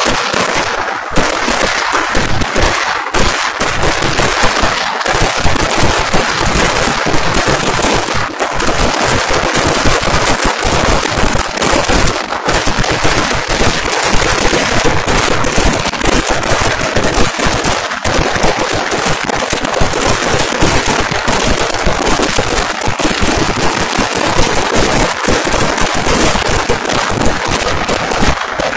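Vedikettu fireworks barrage: firecrackers going off in a rapid, continuous stream of overlapping bangs, like a machine gun, with no pause.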